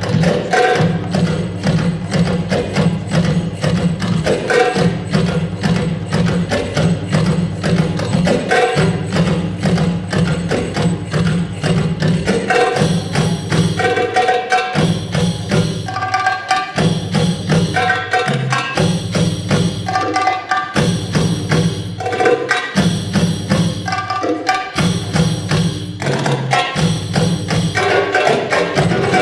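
Music for a dance solo: a steady, busy percussion beat over a sustained low drone. About halfway through a brighter figure enters and repeats roughly every two seconds.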